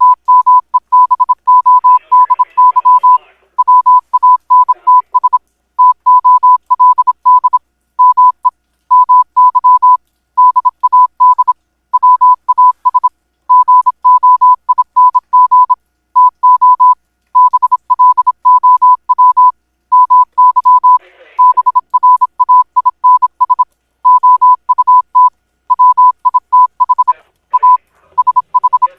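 A single steady high-pitched electronic beep keyed rapidly on and off, in short and long pulses grouped with brief pauses, in the manner of Morse code. Faint voices lie underneath, about two seconds in and again around twenty-one seconds.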